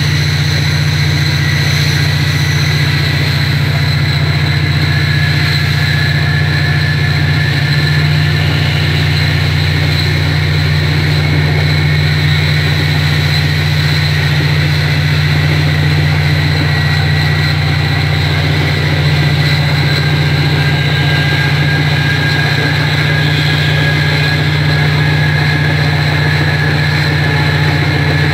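Diesel passenger train's engine running steadily as the train travels, heard from inside the carriage: a constant low drone with a thin, steady high whine over it.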